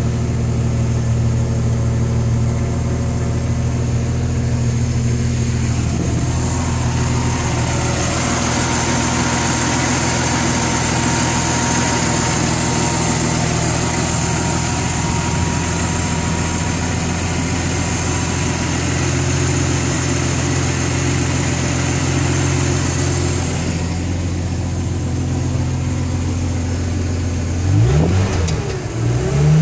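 MerCruiser Alpha One 4.3-litre V6 sterndrive engine idling steadily. Near the end its pitch dips and then rises as it is briefly revved.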